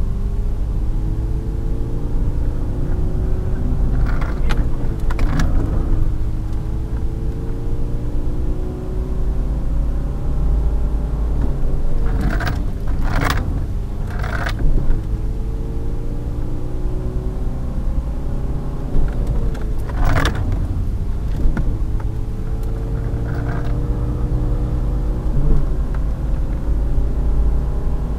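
Renault Clio 1.9 D's naturally aspirated diesel engine heard from inside the cabin, run hard under full throttle: its pitch climbs again and again, each time dropping back as the next gear goes in. A few sharp knocks cut in along the way. The little 64-horsepower engine is at its limit.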